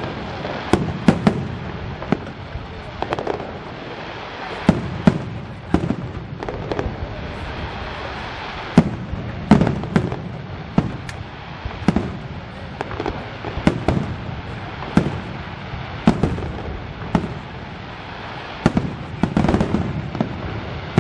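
Fireworks display: aerial shells bursting in an irregular stream of sharp bangs, about one or two a second, over a continuous background rush. The bangs are loudest about halfway through and again near the end.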